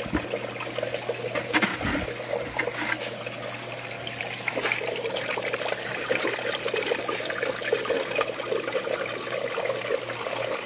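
Water running and splashing down a small stainless-steel sluice as gold concentrate is spooned in, over a steady low hum, with a few knocks in the first two seconds.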